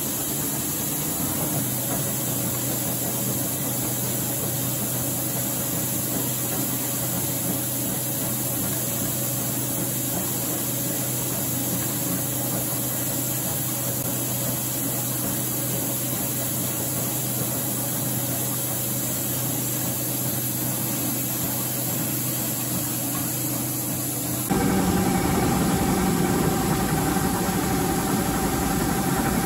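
Tacchi FTC 120 heavy-duty roll lathe running, a steady mechanical hum from its drive as the 1500 mm four-jaw chuck turns. About five seconds before the end the hum changes abruptly and becomes louder, with different steady tones.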